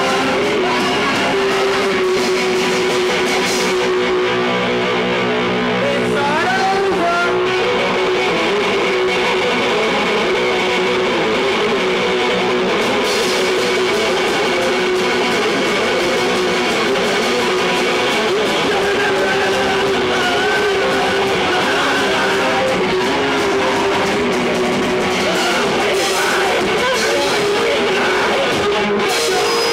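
Live hardcore punk band playing, with distorted electric guitars, drums and shouted vocals, loud and unbroken throughout.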